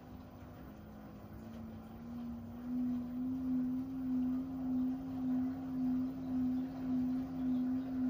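Front-loading washing machine's motor humming as it turns the drum during a rinse. The hum rises slightly in pitch and grows louder about two seconds in, then swells and fades about one and a half times a second.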